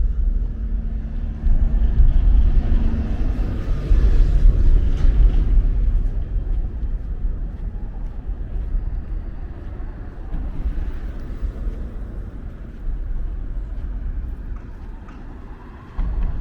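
Gusty wind buffeting the microphone: a deep rumble that swells and fades, strongest a few seconds in.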